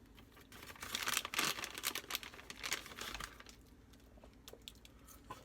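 Food packaging crinkling and rustling as it is handled, loudest for the first couple of seconds and fading out after about three seconds, followed by a few faint clicks.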